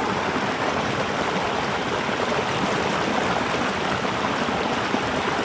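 Small mountain creek running over rocks and riffles: a steady rush of flowing water.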